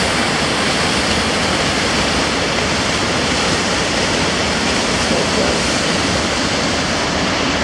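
Waterfall rushing: a loud, steady roar of falling water with no change.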